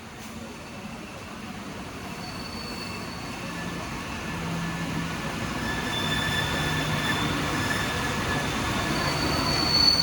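Train approaching and passing close, growing steadily louder, with high, steady squealing tones from the wheels over a rushing rumble.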